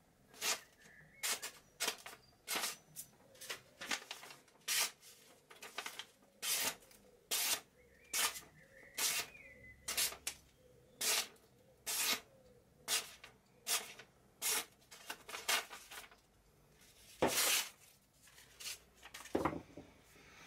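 Sheet of paper being torn by hand into strips: a quick rip about once a second, some twenty in all, with a louder rip near the end.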